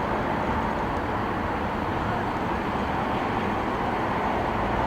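Steady background noise of road traffic, even and unbroken.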